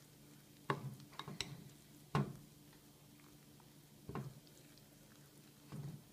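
A fork clinking against a ceramic bowl as it stirs a thick flour batter: a few sharp, irregularly spaced clinks. A low steady hum underneath.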